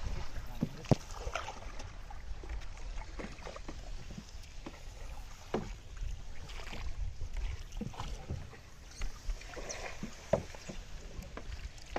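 A long bamboo pole plunged and worked in shallow, weedy flood water from a wooden boat: irregular splashes and knocks every second or few, over a low steady wind rumble on the microphone.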